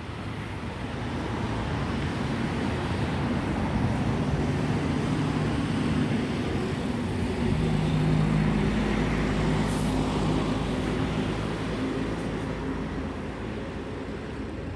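Steady road-traffic noise: vehicle engines running with a low hum, swelling a little around the middle and easing off near the end.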